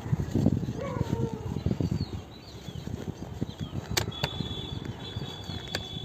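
Outdoor ambience: low rumbling and crackling on the microphone for the first couple of seconds, with a few short animal calls. Later come two sharp clicks and a thin steady high tone lasting about a second between them.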